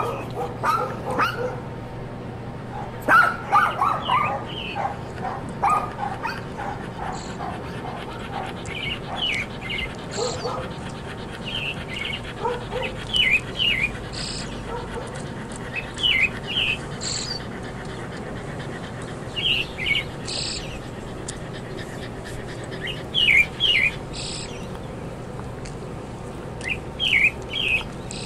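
A dog gives short yips and whines during the first several seconds, then a songbird repeats a brief descending chirp phrase every few seconds.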